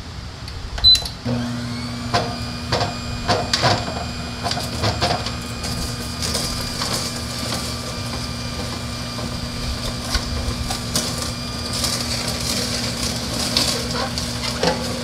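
Philips masticating slow juicer switched on with a click about a second in, its motor then running with a steady low hum. Celery stalks are fed into the chute and crushed by the auger, with scattered knocks and crunches.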